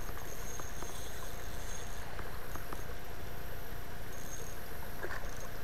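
Steady rush of water pouring over a spillway, with a few faint ticks in the first half.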